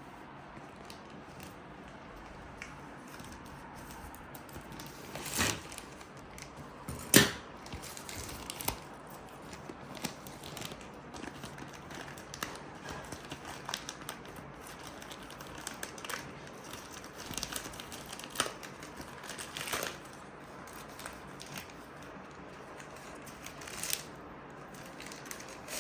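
A courier parcel being torn open and unwrapped by hand: scattered crinkling, tearing and snapping of packaging. A sharp snap about seven seconds in is the loudest.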